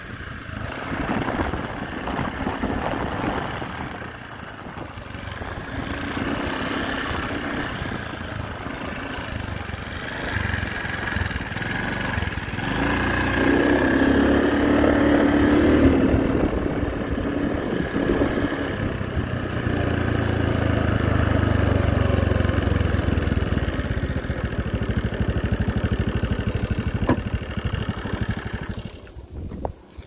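Motorcycle engine running during a ride, with wind on the microphone. The engine swells about halfway through and again later, then the sound drops away just before the end.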